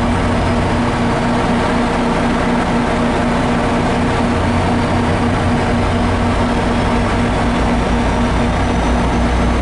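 A MARC diesel passenger locomotive's engine running at a standstill: a loud, steady hum over a low rumble that grows stronger about six seconds in.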